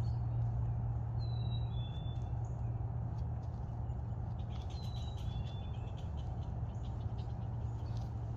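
Black-capped chickadee singing its whistled two-note 'fee-bee' (cheeseburger) song, a higher note then a lower one, twice: about a second in and again about five seconds in. A steady low rumble runs underneath.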